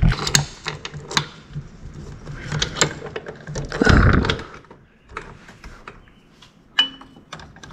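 Ratchet wrench on a long extension clicking and clinking against metal as it works a fastener deep inside an outboard motor, with a louder handling noise about four seconds in.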